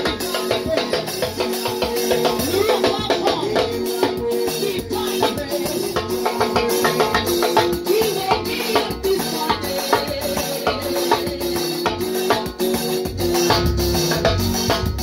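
Live band music in a Jamaican revival-mento style, a drum kit with cymbals keeping a steady, busy beat under a melody line.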